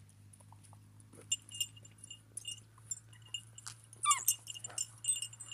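Kangal puppy giving a short, falling yelp about four seconds in while adult dogs nose at it. Around it runs repeated light metallic jingling and clinking.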